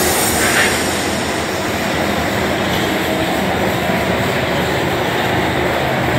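Heavy industrial machinery running with a steady, loud rumble and rattle.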